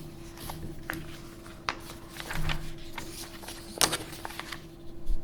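A pause in speech: quiet room tone with a steady faint hum and a few small clicks, the sharpest nearly four seconds in.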